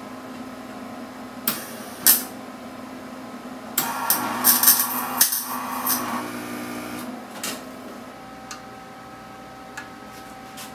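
MIG welder arc crackling as a tack weld is attempted on a steel bracket: two brief strikes about a second and a half and two seconds in, then a longer crackling burst of about three seconds from about four seconds in, with a few single clicks after it. A steady hum runs underneath.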